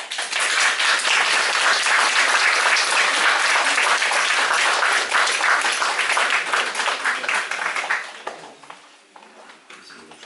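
Audience applauding, breaking out suddenly and dying away after about eight seconds.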